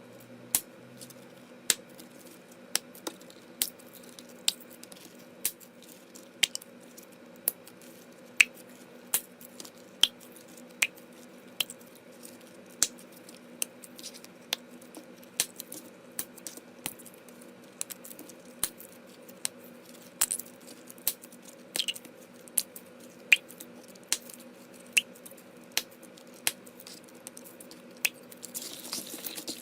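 Slime being pressed and poked, giving sharp clicking pops at a steady pace of about four every three seconds over a faint steady hum.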